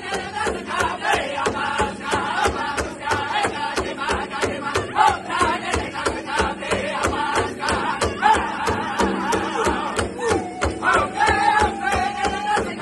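Powwow drum group singing a men's grass dance song. Several men sing in high, wavering voices over a large rawhide drum, which they all strike together in a steady, even beat.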